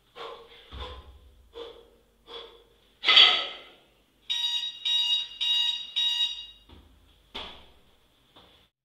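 Sharp, forceful exhales of a kettlebell lifter working through reps, then an electronic interval timer beeping four times, about two beeps a second, marking the end of the timed set.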